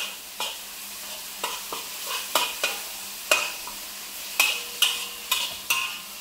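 Metal spatula scraping and knocking against a wok while tomatoes are stir-fried, about a dozen sharp strokes at an uneven pace over a steady sizzle.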